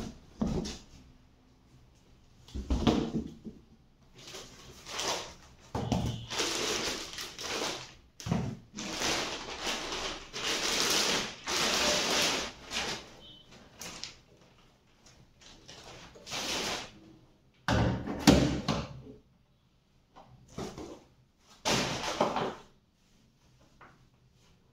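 Unpacking an amplifier: cardboard box and foam packing blocks handled, a plastic bag rustling, with a couple of sharp knocks about two-thirds of the way through.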